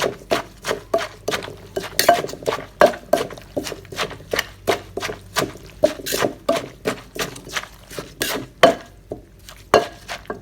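Pestle and spoon working papaya salad in a mortar: quick, irregular knocks and clinks, about two to three a second, as the shredded papaya is pounded and tossed with the dressing.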